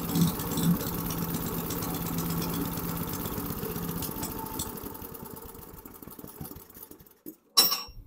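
Small single-cylinder Briggs & Stratton 3 hp engine on a chipper shredder running steadily, then shut off and winding down to a stop over a few seconds. A single sharp clack follows near the end.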